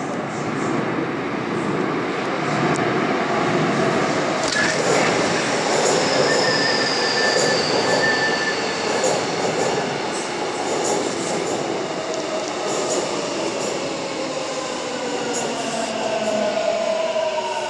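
Seoul Subway Line 7 electric train running into the station past the platform end, with a steady rumble of wheels on rail. About six seconds in a high whine falls in pitch, and near the end lower whines slide down as the train slows for the stop.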